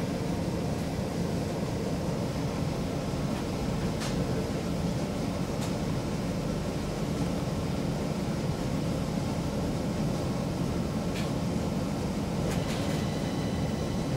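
A Stockholm Metro C20 train heard from inside the carriage while it runs: a steady low rumble of wheels on the rails, with a few brief clicks along the way.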